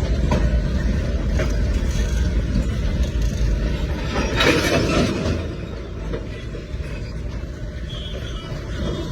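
Train running with a steady low rumble. A brief louder burst of noise comes about four and a half seconds in, and the rumble is quieter after it.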